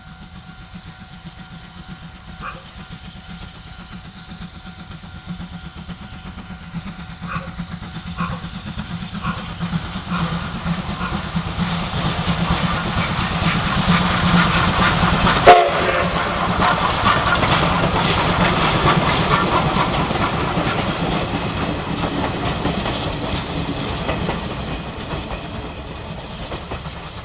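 Moka Railway's C12 66, a small 2-6-2 tank steam locomotive, working a passenger train: its exhaust beats and running gear grow louder as it approaches and passes close by, followed by the coaches rolling over the rail joints and fading away. A level-crossing bell rings steadily early on, and there is one sharp knock just past the middle, the loudest moment.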